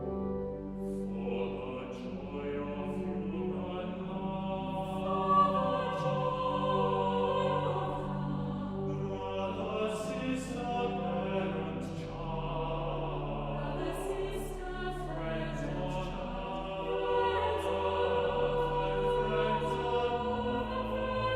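Choir singing with organ accompaniment, sustained notes over steady low bass tones.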